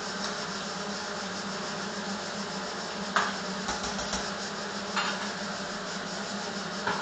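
Pot of roast beef with potatoes and zucchini in tomato sauce simmering on the stove: a steady hiss with three short sharp pops a little under two seconds apart.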